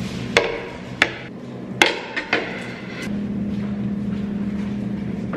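Plates and a bowl being set down on a wooden table: about five sharp clinks and knocks in the first two and a half seconds, over a steady low hum.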